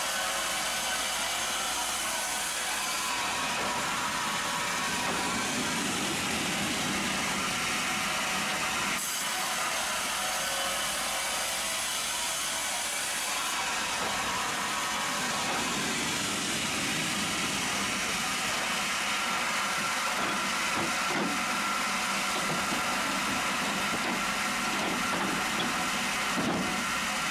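Sawmill machinery running with steady mechanical noise; the sound changes abruptly a few times, about 3, 9 and 13 seconds in.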